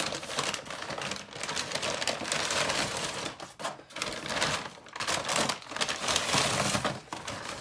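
Takeout packaging being handled: paper bags and wrappers rustling and crinkling in irregular bursts.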